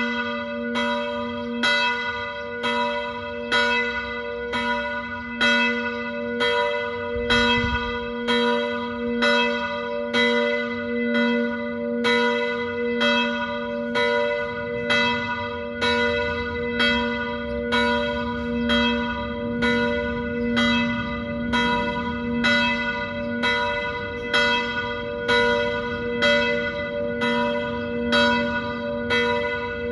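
Church bell ringing in an even rhythm, struck about once a second, its low hum ringing on steadily between strokes.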